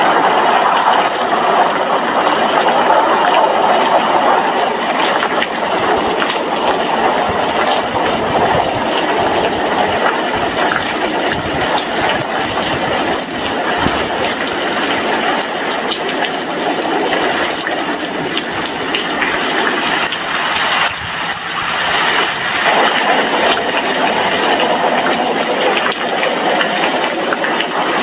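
Steady rain heard at an apartment window, a dense continuous hiss and patter of drops.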